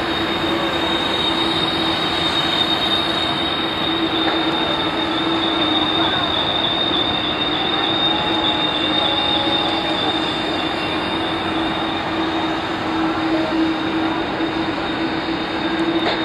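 Steady jet turbine whine: a constant rushing noise with a high held whistle and a lower held hum, as from an airliner's turbine running at the gate.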